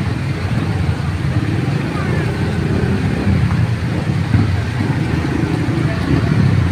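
Many small motorcycles and scooters riding slowly past at close range, their engines running together steadily.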